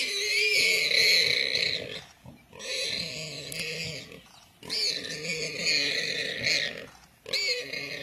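Warthog squealing in distress as a leopard bites and holds it down: four long, high-pitched screams, each about one and a half to two seconds, with short breaks between them.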